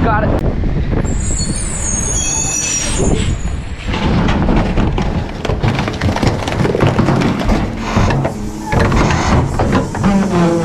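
Garbage truck running, with clanking and rattling throughout and a brief high squeal or hiss about one to three seconds in.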